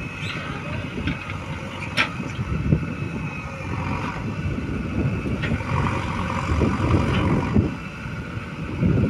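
Heavy diesel machinery running at the mud-loading site, most likely the JCB 3DX backhoe loader at work, with a faint steady high whine and a sharp knock about two seconds in.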